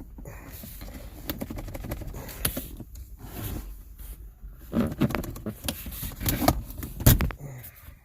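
Plastic clicks, creaks and rattles of a 2015 Kia Optima's gear shift knob and console trim being tugged and worked loose by hand, with a louder knock about seven seconds in.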